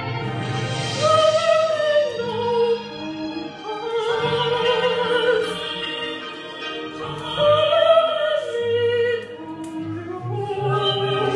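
A woman singing a Buddhist song solo, in long held notes with vibrato, over instrumental backing music.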